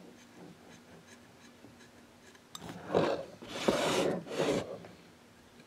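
Faint scratching of a hot knife's blade tip on a wooden clock blank. About two and a half seconds in, a loud rubbing, brushing noise in three pushes over about two seconds as the hand and tool are moved across the board.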